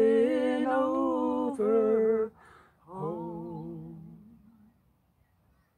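A man and a woman singing together in harmony, holding the last notes of a traditional folk song with vibrato. After a short breath about two seconds in, a final softer phrase fades out before about five seconds in.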